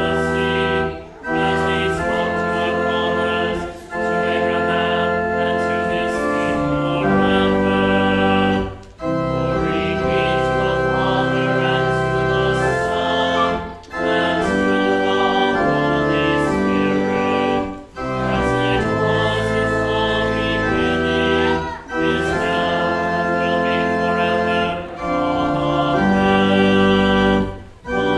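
Church organ playing sustained chords in phrases, with a brief break between phrases every few seconds.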